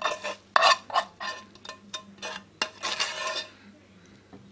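Metal spoon scraping and knocking against a coated frying pan as food is scooped out onto toast, in a string of short scrapes with one longer scrape about three seconds in.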